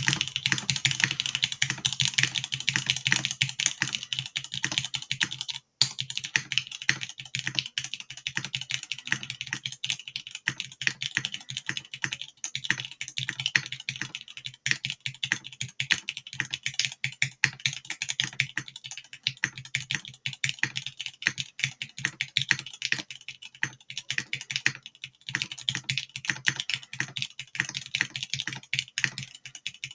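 Fast, continuous typing on a custom TGR Jane V2 CE mechanical keyboard with lubed and filmed Gateron X linear switches, a carbon-fibre plate, GMK doubleshot keycaps and no foam. The result is a dense run of key clacks that pauses briefly about six seconds in.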